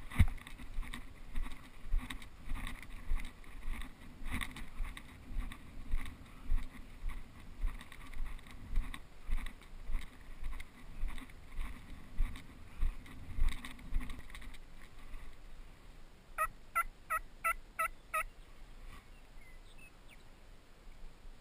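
Footsteps crunching through dry grass, about two a second, for the first fourteen seconds or so. After a short pause, a series of six evenly spaced turkey yelps, about three a second.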